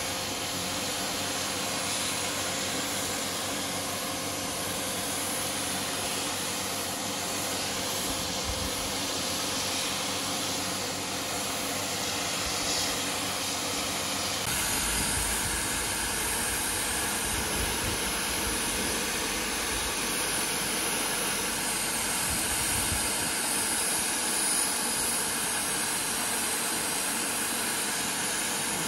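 Bosch electric paint sprayer running steadily: the motor's drone under a hiss of air and paint from the spray gun. The sound changes in tone once, about halfway through.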